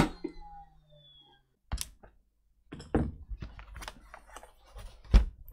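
Plastic laptop case being handled: a string of clicks and knocks as the HP Pavilion's base is pressed and the laptop is lifted and turned over, with the loudest thump near the end as it comes down on the desk.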